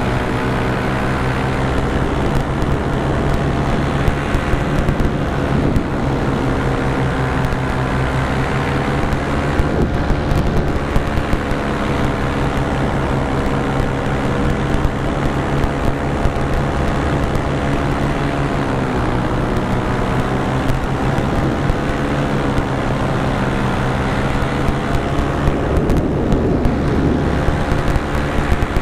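Paramotor engine and propeller running steadily in flight, the pitch wavering slightly up and down with the throttle.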